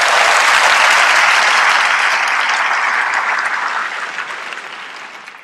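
Audience applauding, loudest at first and gradually dying away toward the end.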